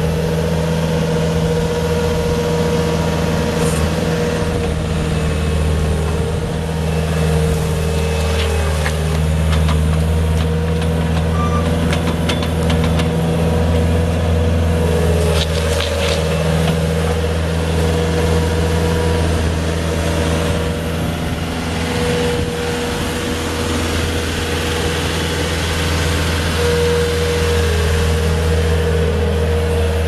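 Bobcat S220 skid steer's four-cylinder diesel engine running steadily, with a few short knocks about a third of the way in.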